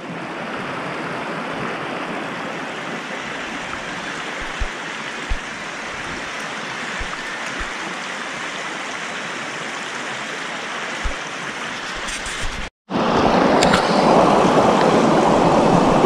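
Shallow river water rushing steadily around people wading across it, with a few soft thumps. Just before thirteen seconds in the sound cuts out for a moment, then the water comes back louder and closer.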